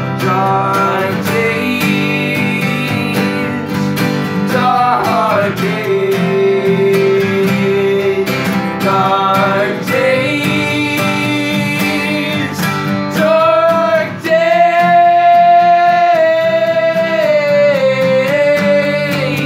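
Two male voices singing together over two strummed acoustic guitars, one a Fender cutaway. In the second half the voices hold long, drawn-out notes, with a short break about fourteen seconds in.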